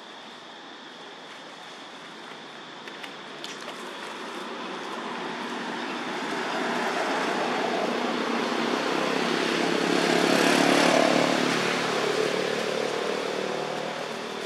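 A passing engine: a low, steady hum that grows louder over about ten seconds, peaks, then eases off a little near the end.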